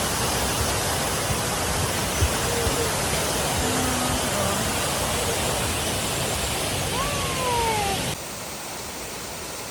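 Waterfall: a steady, full rush of falling water. It cuts off abruptly about eight seconds in, giving way to a quieter steady background noise.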